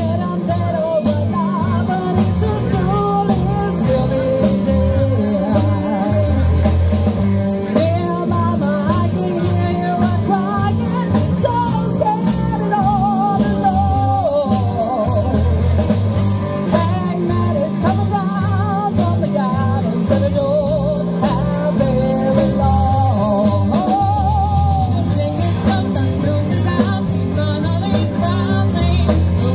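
Live rock band playing through a PA: electric and acoustic guitars, bass, keyboard and drums over a steady beat, with a lead melody that bends up and down in pitch.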